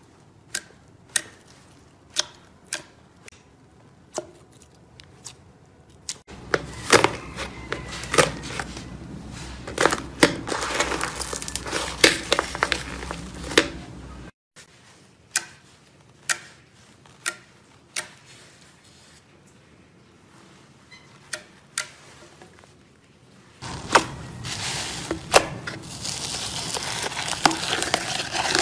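Slime pressed and poked by hand, giving sharp popping clicks about once a second in the quieter stretches. In two louder stretches the clicks turn into dense crackling.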